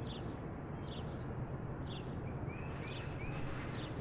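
Small birds chirping repeatedly in short calls over steady outdoor background noise with a low hum.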